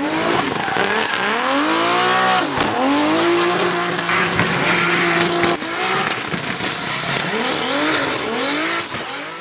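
Race car engine revving, its pitch climbing and dropping again and again, held steady for a couple of seconds in the middle, then breaking off suddenly. Short tyre squeals come in between.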